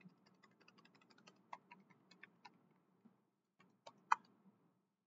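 Computer keyboard being typed on in quick, irregular key clicks. The typing pauses briefly about three seconds in, and one louder keystroke comes about four seconds in.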